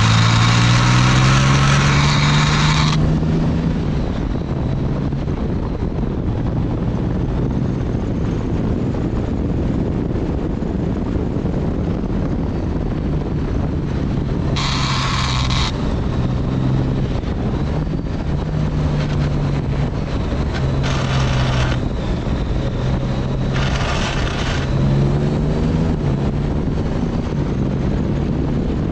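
Motorcycle engine running along a winding road, its pitch rising in the first few seconds and again near the end. Four harsh hissing bursts cut through it, one about three seconds long at the start and three shorter ones later: hard parts scraping the asphalt while leaned over in corners.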